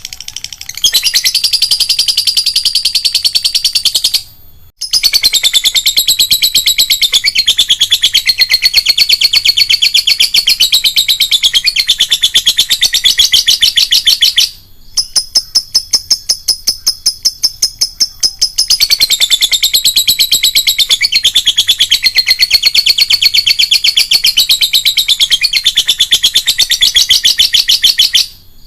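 Lovebird's long chattering song (ngekek panjang): fast, shrill notes repeated in long unbroken runs. It breaks off briefly about four seconds in and again partway through, when a steadier high trill takes over for a few seconds.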